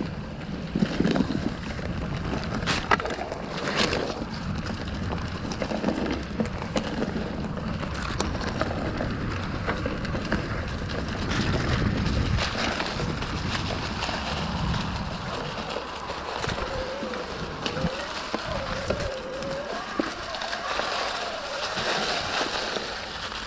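Canyon Spectral:ON 6.0 electric mountain bike ridden along a forest trail: tyres rolling over dirt and dry fallen leaves, sharp rattles and knocks from the bike over bumps in the first few seconds, and wind rushing on the action camera's microphone. A faint wavering whine comes in over the second half.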